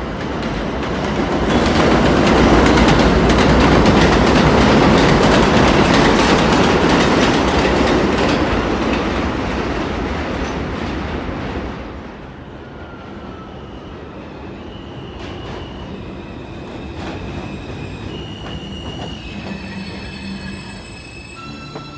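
Subway train running through an elevated station: a loud rumble with rapid wheel clatter, fading about twelve seconds in. Scattered high-pitched wheel squeals follow.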